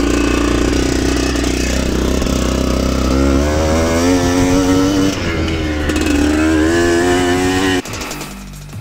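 1994 Aprilia RX 125's two-stroke Rotax 123 engine running with its revs rising and falling under gentle throttle, as the freshly rebuilt engine is still being run in. The engine sound cuts off suddenly about a second before the end.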